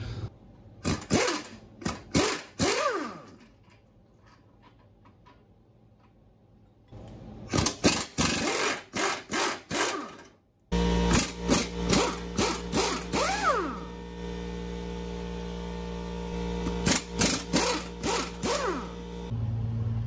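Impact wrench firing in short bursts to break loose the transmission cross member bolts, several bursts in quick succession, each rising and falling in pitch. The bursts stop for a few seconds partway through, and a steady hum runs behind the later ones.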